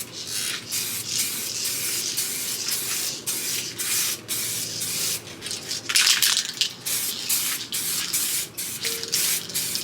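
Two-part (2K) aerosol clear coat spraying onto a headlight lens in side-to-side passes: a hiss that stops and starts many times as the nozzle is released between passes.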